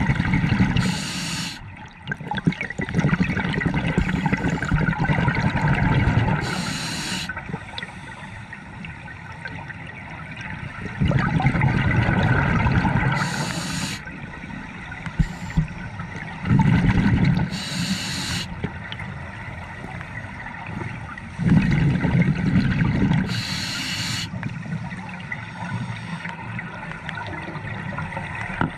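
Scuba diver breathing through a regulator underwater: exhaled bubbles gurgle and rumble in bursts of a few seconds, with a short hiss from the regulator about every five to six seconds.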